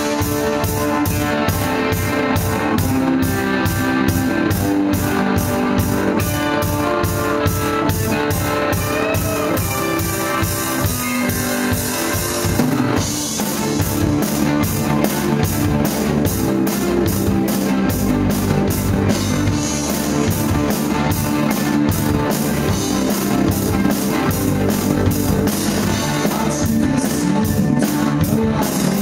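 Live rock band playing: electric guitars, bass guitar and drum kit, with a steady beat of about two to three cymbal and drum hits a second. The playing shifts about halfway through.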